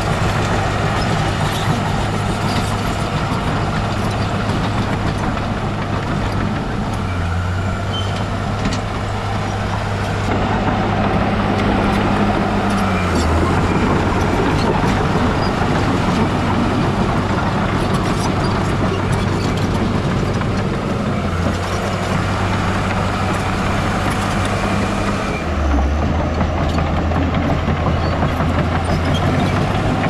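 Heavy diesel engine of earthmoving machinery running under working load, its pitch dropping and recovering several times as the load changes, with rattling and clanking over it.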